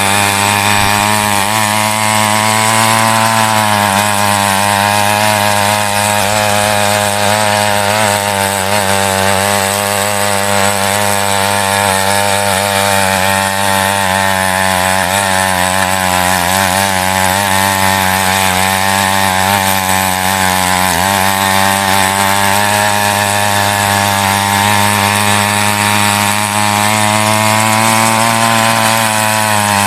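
Small petrol engine of a mini weeder (walk-behind tiller) running at high speed as its rotating tines dig through soil, the engine note sagging briefly a few times as the tines bite under load.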